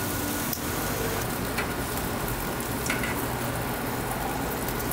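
Thick slices of pre-cooked pork pancetta sizzling on a barbecue grill grate, a steady hiss with a few sharp pops, as the fat renders out and the rind crisps.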